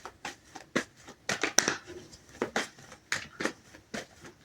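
Tarot cards being shuffled and handled: a run of quick, irregular card snaps and rustles, busiest from about one to two seconds in.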